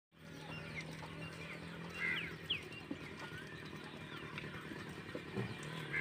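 Rural outdoor ambience: a faint steady low hum, with a few short bird chirps about two seconds in.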